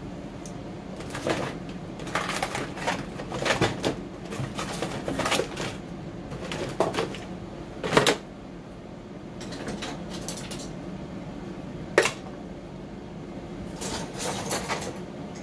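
Rummaging through tools and supplies on a workbench: small hard objects clattering, scraping and being set down in irregular bursts, with two sharp knocks, one about halfway through and one a few seconds later.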